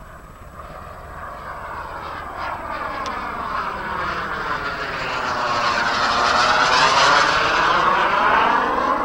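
A radio-controlled model Cougar jet flying past with a rushing jet sound. It swells to its loudest about six to seven seconds in, then begins to fade as it moves away.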